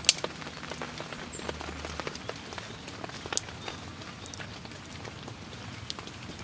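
Steady rain falling, with scattered sharp ticks of individual drops landing close by. There is one louder snap just after the start and another a little past the middle.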